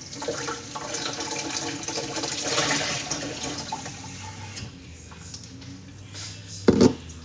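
Water rushing and gurgling for about four and a half seconds, then fading away. A short loud knock comes near the end.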